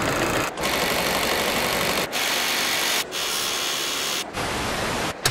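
A small machine's dense, steady rattling noise, chopped into blocks of about one to one and a half seconds with brief sharp drop-outs between them.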